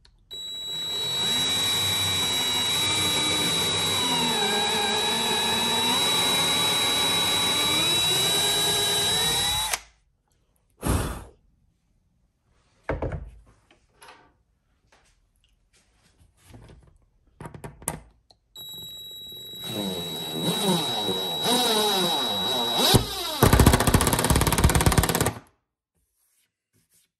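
Cordless driver with a countersink bit drilling into 3/4-inch melamine board in one steady run of about ten seconds, its motor whining at a steady high pitch, followed by a few short trigger blips. Later it drives a 2-inch wood screw into the countersunk hole, the last two seconds or so a fast, loud rattle as the screw seats flush with the surface.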